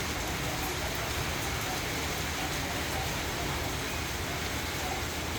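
Rain shower falling steadily: an even hiss with a low rumble underneath.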